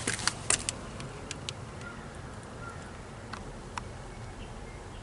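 A few crunching footsteps in about the first second, then a faint steady low hum with scattered light ticks.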